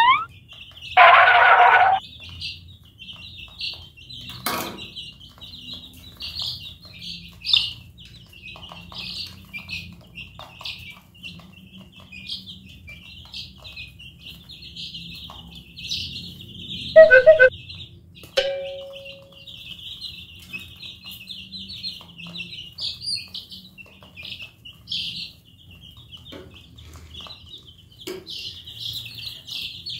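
A flock of young domestic chicks peeping continuously, a dense chorus of short high cheeps. Two louder brief sounds cut in, a noisy one about a second in and a pitched one around seventeen seconds.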